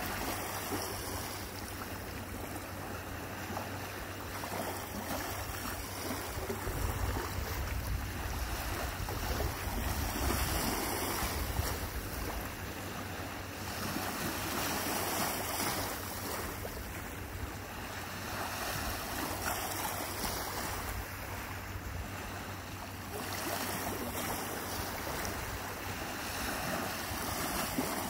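Lake Michigan waves washing onto the shore, swelling and easing every few seconds, with wind rumbling on the microphone.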